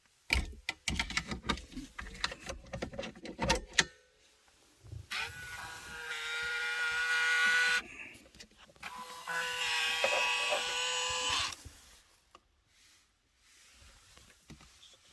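Rapid clicks and knocks from handling for about four seconds, then a small electric motor runs twice with a steady whine, each run about three seconds long with a short gap between them.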